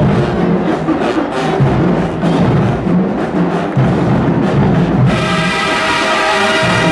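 Marching band playing in the stands: a drum-line cadence of snare and bass drums, then about five seconds in the full brass section, sousaphones included, comes in on a loud sustained chord over the drums.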